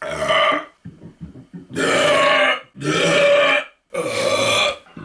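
A person belching loudly four times: a short belch at the start, then three longer belches of just under a second each, in quick succession about a second apart.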